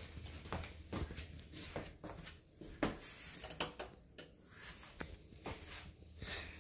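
Light, irregular clicks and taps of a small dog's claws on a tile floor as it walks about.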